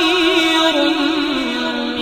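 Background vocal music: a single voice singing a slow, chant-like melody in long wavering notes that step down in pitch.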